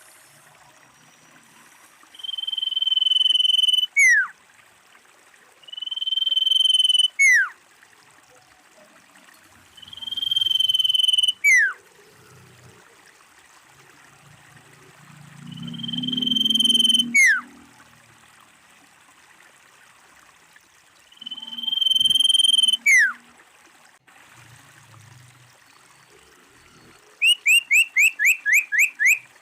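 Common iora calling: five long, steady whistles, each swelling in loudness and ending in a sharp downward-slurred note, then a rapid run of about ten short notes near the end.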